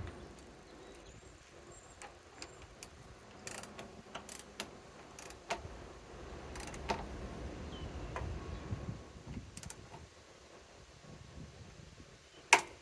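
Torque wrench being set and worked on a bolt toward 60 foot-pounds: scattered mechanical clicks and ticks, with one sharp, much louder click near the end.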